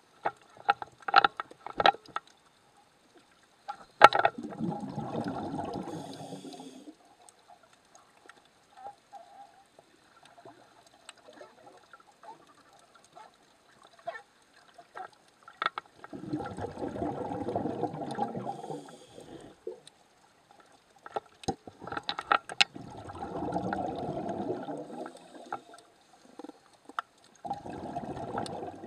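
A scuba diver's breathing heard underwater: the regulator's exhaled bubbles rush out in bursts of about three seconds, four times, with sharp clicks and pops in between.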